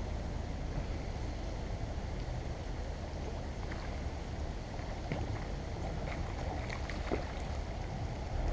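Steady low rumble of wind buffeting the microphone, with a few faint ticks in the second half.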